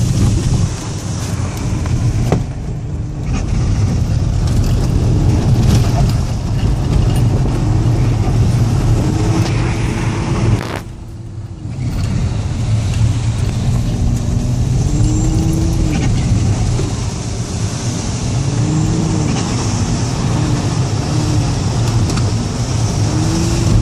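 Audi A6 2.5 TDI quattro's turbocharged V6 diesel, running about 1.7-1.8 bar of boost, driven hard with the revs rising and falling over and over and turbo flutter as the throttle is lifted. The engine sound drops away briefly about eleven seconds in, then picks up again.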